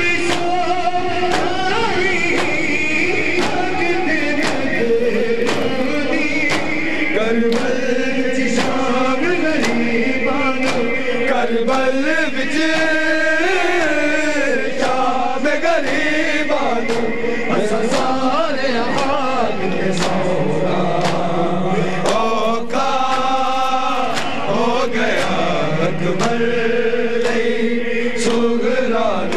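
Men chanting a Punjabi noha (lament) in a group, with rhythmic hand-on-chest slaps of matam, a little over one a second.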